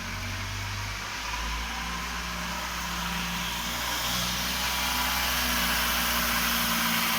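Toyota Vitz engine idling steadily with no knock, just after a piston that rocked loose on its pin was replaced. It grows slightly louder over the few seconds.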